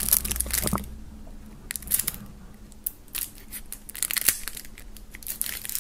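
Knife blade slitting and scraping plastic shrink wrap off a small cardboard card box, in short scattered scratches and crinkles.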